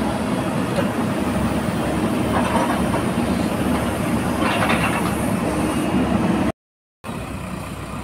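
Diesel engine of a JCB 4DX backhoe loader running steadily, mixed with a heavy truck's engine. The sound drops out for about half a second near the end.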